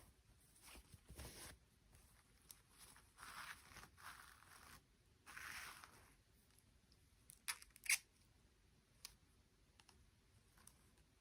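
Quiet handling sounds of toy packaging: a few soft rustling, tearing scrapes in the first half, then two sharp clicks close together, the loudest sounds, followed by a few faint ticks.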